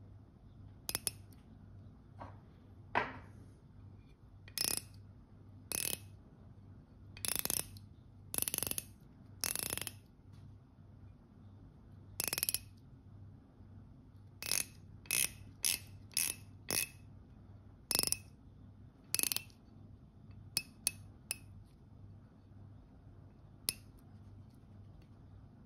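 Rotating dive bezel of a Fossil FS5961 Blue Dive watch being turned by hand, ratcheting in single sharp clicks, some in quick pairs, with uneven pauses between them and a gap of a couple of seconds near the middle.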